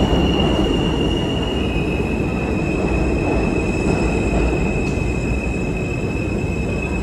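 R160A subway train moving along the platform: a steady heavy rumble and rattle of the cars with a high, steady whine over it that drops slightly in pitch about a second and a half in.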